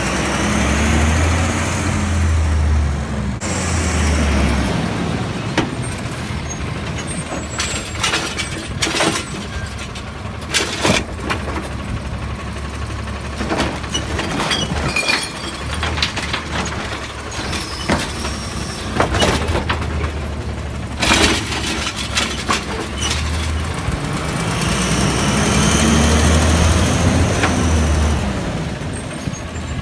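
Natural-gas automated side-loader garbage truck's engine revving, rising and falling, to drive the hydraulic lift arm as it raises a recycling cart. Through the middle comes a run of clanks and knocks as the cart is tipped over the hopper and recyclables fall in. The engine revs again near the end as the arm brings the cart back down.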